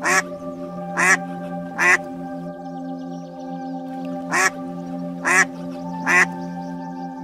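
Duck quacking six times, in two sets of three loud quacks about a second apart, over soft ambient music with steady held tones.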